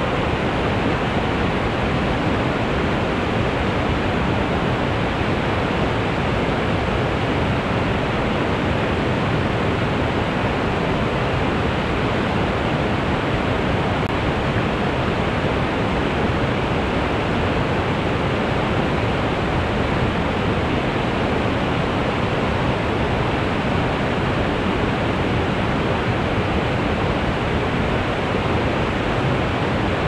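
Waterfall rushing: a steady, unbroken wash of falling water.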